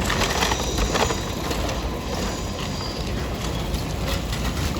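Train running at a level crossing: a steady noise of wheels on rails.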